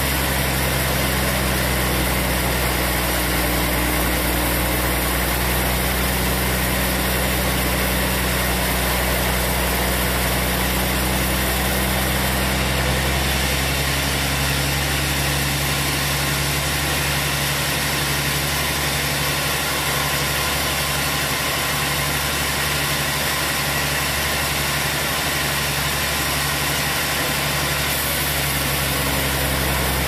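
Hanta Iron Works band sawmill running steadily, its blade cutting through a trembesi log on the carriage: a continuous loud machine hum with low tones that change about halfway through.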